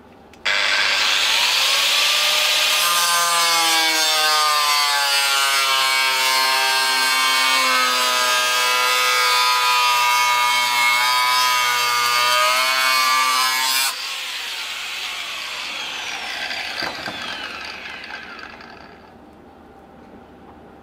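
Angle grinder with a cutting disc starts up about half a second in and cuts aluminium plate for about thirteen seconds, its whine wavering in pitch as the disc bites. It is then switched off and winds down over about five seconds with a falling whine.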